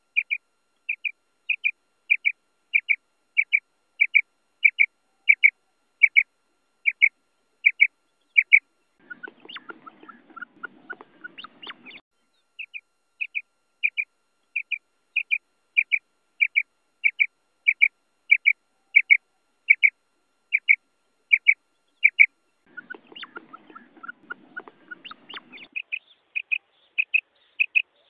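Common quail calling: short, sharp, high notes repeated evenly, a little under two a second, broken twice by a few seconds of lower, rougher sounds.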